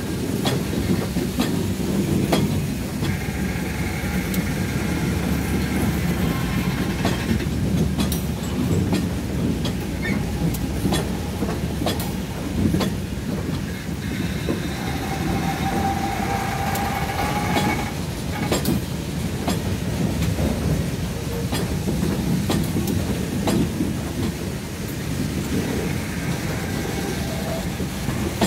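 Trailing GE C44-9W diesel locomotives of a freight train rolling past close by: steady diesel and wheel rumble with rapid clicking of wheels over the rails. A whining tone comes and goes, a few seconds in and again around halfway.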